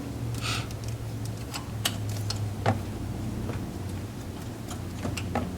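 Scattered light clicks and taps of a nut, screws and brackets being handled and fitted by hand, over a steady low hum.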